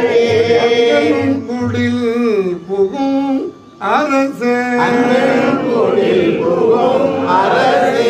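Men's voices chanting a Tamil devotional hymn, holding long notes, with a brief pause about three and a half seconds in.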